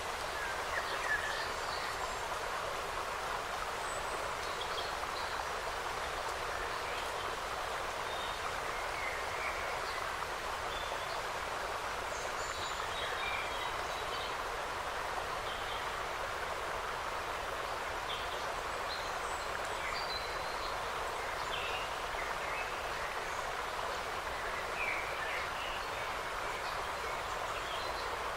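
Forest ambience: a steady, even rushing noise with scattered short, high bird chirps throughout.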